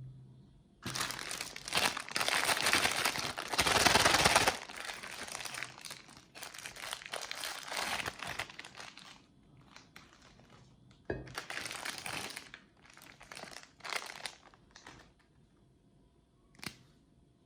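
Packaging crinkling and rustling as it is handled, in irregular bursts that are loudest in the first few seconds, with a single short click near the end.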